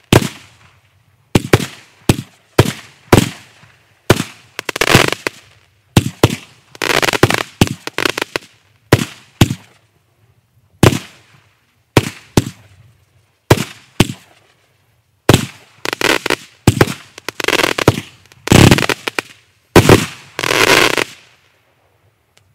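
Kimbolton Fireworks 'Razzle Dazzle' 49-shot 20 mm fireworks cake firing its last shots: a quick run of sharp launch pops and bursts, several trailing off in crackling. The last burst dies away about 21 seconds in.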